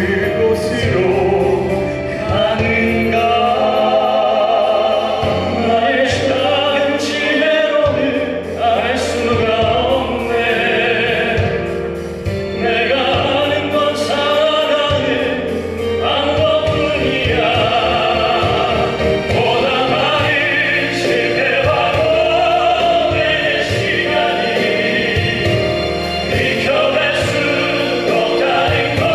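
Male classical vocal ensemble singing in operatic style, several voices in harmony over instrumental accompaniment.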